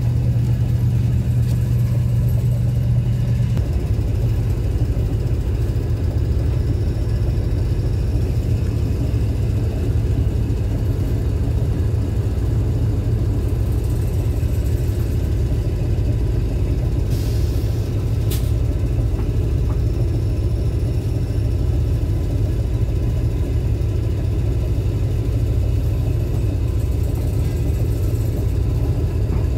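Steady low rumble and hum of the train's idling machinery and air conditioning, heard inside a passenger coach while the train stands still. A deeper drone drops away a few seconds in, and there is a single faint tick about two-thirds of the way through.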